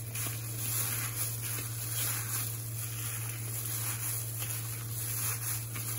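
Soft, irregular squishing and rustling as a hand in a thin plastic glove kneads minced beef and chopped onion in a plastic bowl, over a steady low hum.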